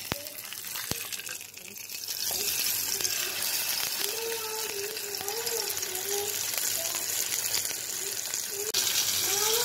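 Frozen minced-chicken burger patty sizzling in oil in a frying pan, a steady hiss. Two sharp taps of the metal spatula against the pan come right at the start, as the patty is lifted and turned.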